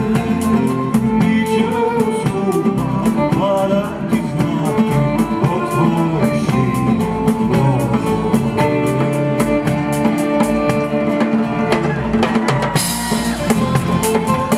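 Live band playing an instrumental passage: nylon-string classical guitar and violin over a drum kit keeping a steady beat.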